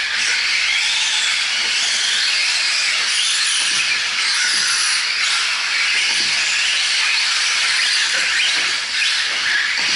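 Several 4WD short-course RC trucks racing on a dirt track: a steady high hiss of motors and tyres, with motor whines that glide up and down in pitch as the trucks throttle on and off.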